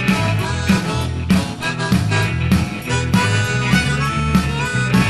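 Rock band playing an instrumental break: drums keeping a steady beat under bass and guitar, with a harmonica playing over them.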